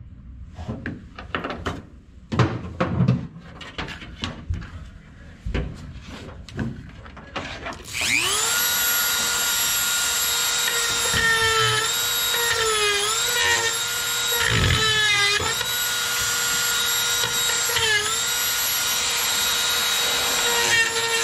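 Scattered clicks and knocks of tools being handled, then about eight seconds in a Dremel rotary tool spins up to a steady high whine, its pitch dipping briefly several times as it is pressed into the work. It is grinding out a body bolt hole that no longer lines up after the body was shifted.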